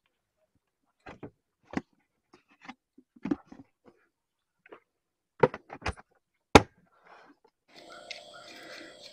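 Scattered knocks and clatters of hard plastic containers being handled on the wooden boards of a boat, a lidded plastic bucket and a plastic jar, the loudest about six and a half seconds in. Near the end a steady whirr begins as a hand works a spinning reel.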